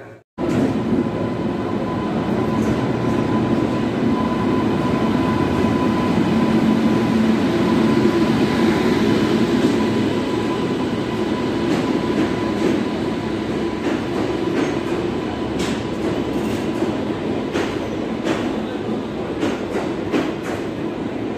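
Passenger train coaches of the Himsagar Express rolling past along a station platform: a steady loud rumble with a thin steady whine through the first half, and wheels clicking over rail joints in the later part.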